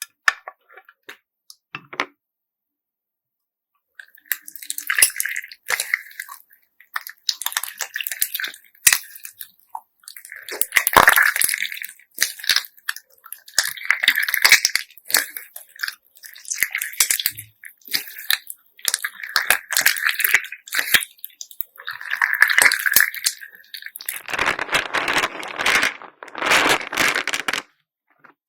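Slime mixed with assorted beads being squished and kneaded by hand: repeated squelching presses, each packed with many small clicks and clacks of the beads, coming every second or two after a short pause near the start. Near the end come two longer, fuller squishes.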